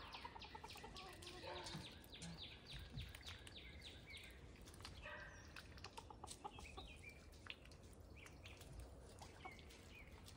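Faint bird calls: rapid, repeated high chirping through the first half, with a few soft clucking calls.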